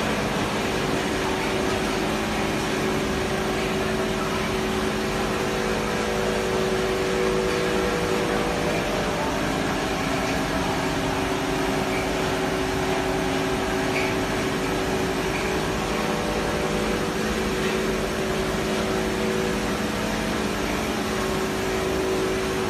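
BSGH BS-N125 dry copper cable granulator line, with its crusher, conveyor and vibrating separator table, running steadily: an even mechanical noise with a steady low hum.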